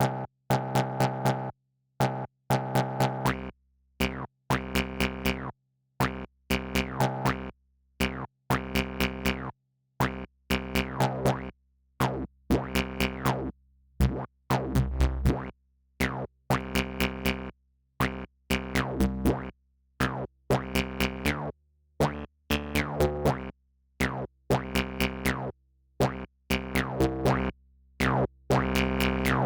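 Electronic music from a VCV Rack software modular synthesizer patch: pitched synth notes with sharp drum-machine clicks on top, played in choppy bursts about a second long broken by short silences, with some falling pitch sweeps.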